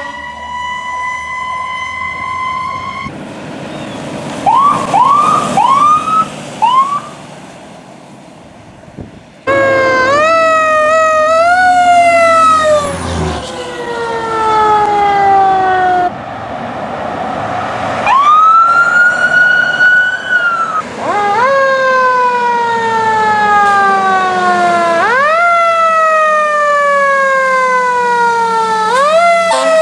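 Fire truck sirens as several units respond in turn. First a steady held tone for about three seconds, then a few short rising yelps. After that come long wails that rise quickly and fall slowly, over and over.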